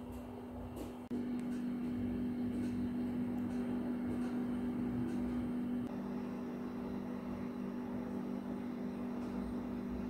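A steady low electrical or mechanical hum. It cuts in louder about a second in and drops a little about six seconds in.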